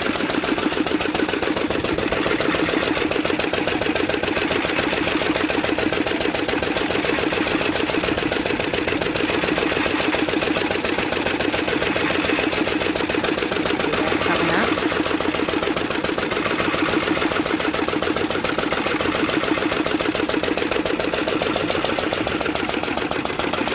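A small International Harvester engine running steadily and belt-driving an F.E. Myers geared pump jack that is pumping water. The engine and the pump's gears make a fast, even mechanical clatter.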